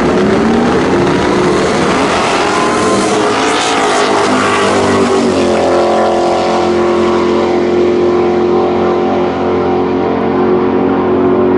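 Two Ford drag-racing pickup trucks launching side by side and accelerating hard down the strip at full throttle. Their engine pitch climbs in rising sweeps through the gears for the first few seconds, then holds steadier as they run away down the track.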